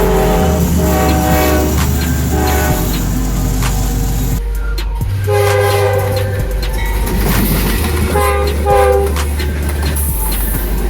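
A locomotive's Nathan K5LA five-chime air horn blowing a series of short and longer blasts over the low rumble of a passing train.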